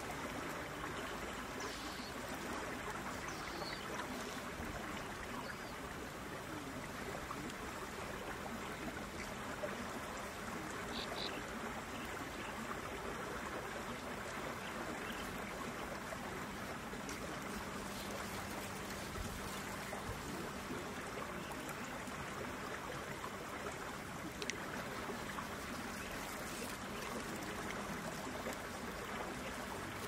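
Steady rush of flowing water, with a few faint, short high chirps now and then.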